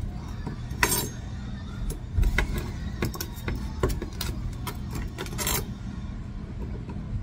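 Chef's knife chopping raw chicken feet on a glass cutting board: sharp, irregular knocks as the blade strikes the glass, several over a few seconds, over a steady low hum.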